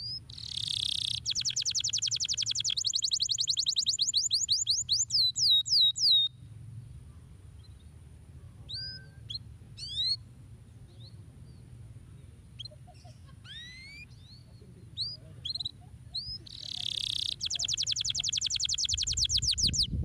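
Domestic canary singing: a long rolled trill of rapid, evenly repeated notes that ends in slower falling notes after about six seconds, then scattered short chirps, then a second rapid trill starting near the end.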